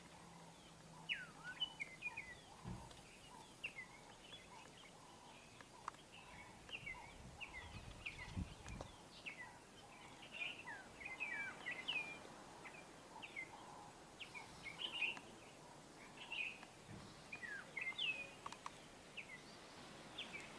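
Small birds chirping, many short quick calls one after another over a quiet outdoor background, with a soft low rumble about eight seconds in.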